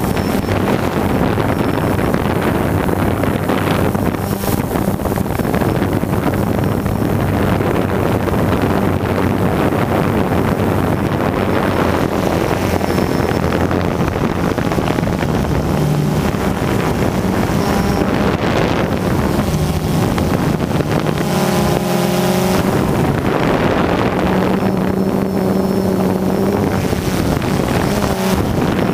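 Quadcopter's electric motors and propellers running, heard from the camera mounted on the drone, with wind buffeting the microphone. The motor hum shifts up and down in pitch several times as the throttle changes in flight.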